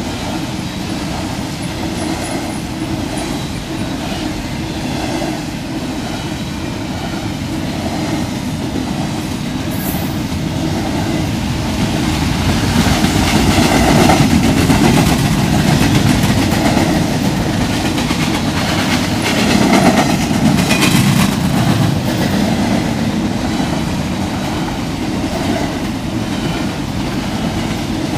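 A freight train of empty intermodal well cars (a 'baretable') rolling past at speed, a continuous rumble of wheels on rail with a faint regular clicking over the joints, loudest around the middle.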